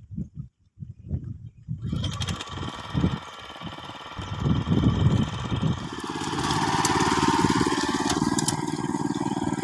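ISEKI PC4 rice transplanter's engine starting after a few low knocks, catching about two seconds in and running, its note settling steadier and louder about six seconds in.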